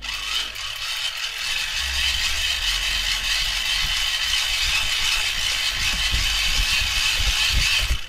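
Hand-cranked USB charger being turned steadily by its handle, its small gearing and generator making a continuous mechanical whir and rattle as it drives a small USB fan. The noise cuts off suddenly at the end when the cranking stops.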